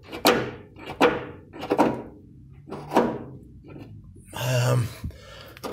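Metal handbrake linkage of a Citroën Relay van being worked by hand, clunking four times about a second apart, each clunk ringing briefly: the freed, freshly greased swivel lever moving freely under its return spring. A short rustle a little past four seconds.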